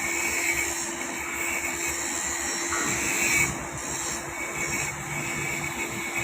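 TIG welding arc on a pipe joint, a steady hiss with a constant low hum underneath.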